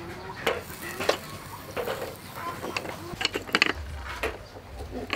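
Metal tongs clicking against clam shells, an aluminium bowl and a wire grill as half-shells are picked out and set on the grill: an irregular series of sharp clicks and clacks.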